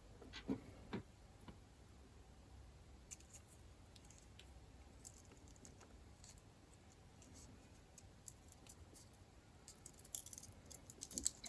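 Faint, scattered light clicks and ticks of small metal knife parts being handled during reassembly: a few in the first second, a cluster near the end, and near silence between.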